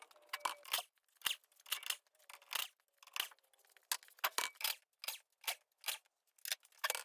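Short, sharp hissing bursts of compressed air from an air-hose tool at the wheel, about two or three a second at uneven spacing.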